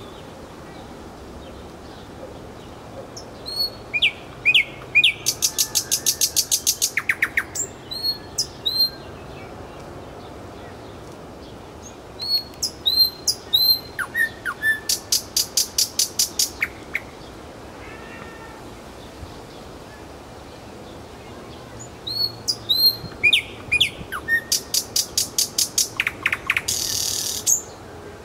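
Thrush nightingale singing three song phrases a few seconds apart. Each phrase is made of short whistled slurs and a fast, loud rattle of sharp clicking notes, about eight a second, and the last ends in a brief harsh buzz.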